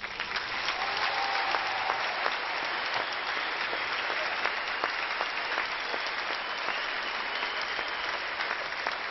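Audience applauding, breaking out suddenly and holding steady throughout.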